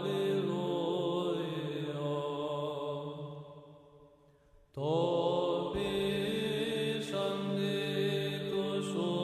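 Background music of chanted voices over a steady held drone note, fading out about three seconds in and starting again abruptly about a second and a half later.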